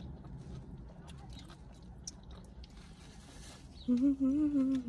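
Quiet chewing of a sub sandwich with small mouth clicks, then about four seconds in a woman starts humming a tune.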